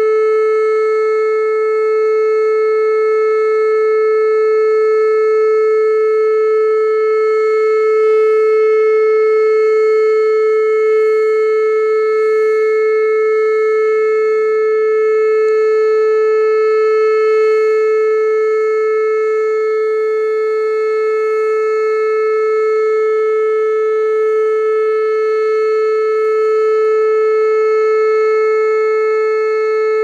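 Whelen WPS-2810 electronic outdoor warning siren sounding a steady, unchanging tone during a test.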